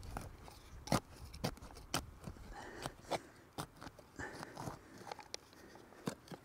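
Small plastic hand shovel scraping and digging in dry, root-laced dirt around a buried glass bottle: irregular crunches and short sharp scrapes, roughly one every half second to second.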